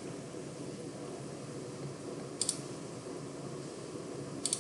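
Computer mouse clicking: a quick double click about two and a half seconds in and another just before the end, over a steady low background hiss.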